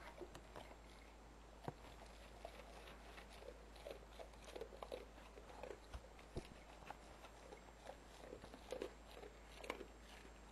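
Pit bull–Rottweiler mix dog chewing, with faint, irregular crunches and clicks.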